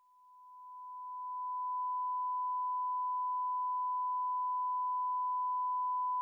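A 1 kHz sine-wave test tone fades up from silence over about two seconds, then abruptly levels off and rises only slowly. This is the tone crossing the threshold of a hard-knee compressor set to 10:1, after which its level is held back.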